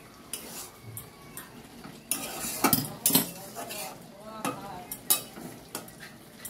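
A metal spatula scraping and clinking against a metal wok as spiced bottle gourd pieces are stirred and fried, with sizzling underneath. The knocks come in irregular strokes, thickest about two to three seconds in.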